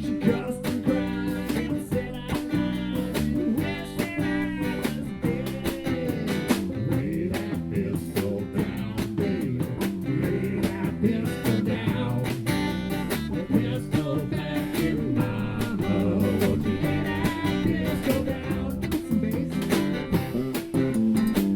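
A live band playing an upbeat country song, guitars to the fore over a steady strummed rhythm, with some singing.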